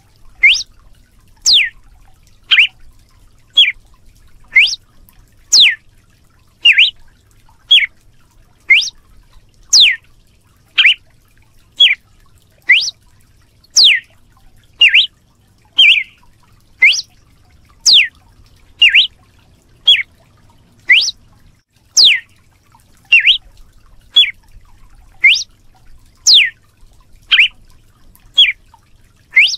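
Red-cowled cardinal repeating its sharp, whip-like 'açoite' call, about one note a second. Each note is a quick sweep in pitch, some rising high and others dropping.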